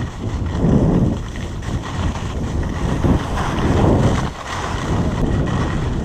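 Wind buffeting the microphone of a camera worn while skiing downhill fast, mixed with the hiss and scrape of skis on packed snow. The noise swells and eases in waves every second or so.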